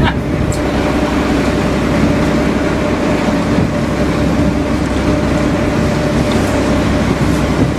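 A fishing boat's engine running steadily with a constant hum, under an even rush of wind and water.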